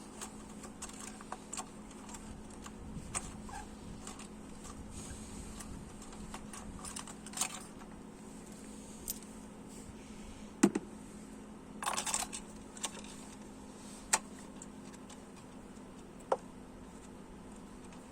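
Scattered small metallic clicks and clinks of hand tools and parts being handled on an engine, with a few sharper clanks in the second half. A steady low hum runs underneath.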